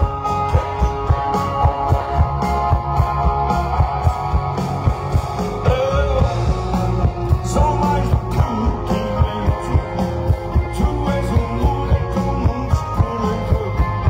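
Live rock band playing loud through a PA: electric guitars, keyboards and drums on a steady beat, with a man singing.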